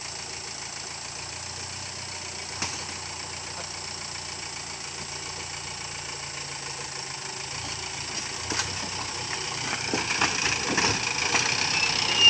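Vehicle engine idling steadily, with a sharp click about two and a half seconds in. The engine and surrounding noise grow louder over the last few seconds, with more clicks and knocks.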